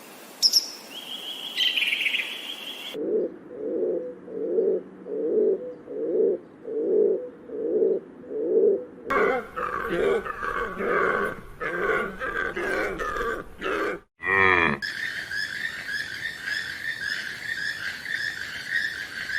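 A string of different animal calls cut one after another. First come high whistle-like notes. Then a run of evenly spaced low calls about every 0.6 s, then quicker higher calls, a short falling cry about two-thirds of the way in, and a steady high rippling call to the end.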